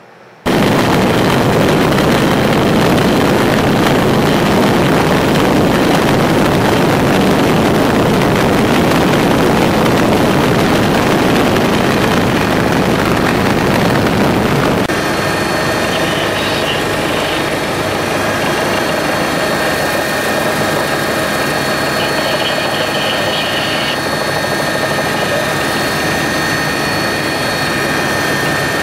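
Loud, steady aircraft engine and rushing-air noise heard from on board a flying aircraft, cutting in abruptly just after the start. About halfway through it changes to a slightly quieter, steadier engine sound with high whining turbine tones.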